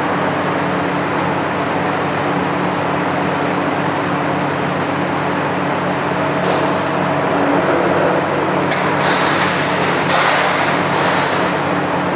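Steel-plate punching machine running with a steady motor hum, and a few sharp metallic knocks and a hiss between about nine and eleven seconds in.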